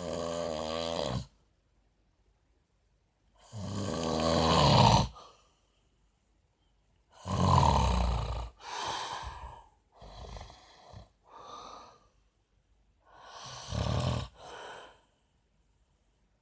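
A man snoring in his sleep: a snore roughly every three to four seconds with quiet gaps between breaths, some snores broken into two or three shorter pieces.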